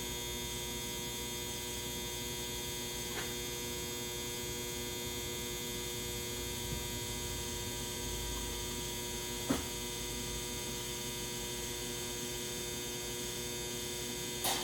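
Steady electrical mains hum and buzz, with two faint clicks, about three and nine seconds in.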